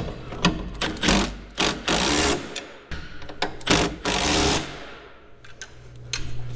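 Power tool run in about five short bursts, each under a second, the last one winding down: snugging up the freshly assembled front-suspension bolts.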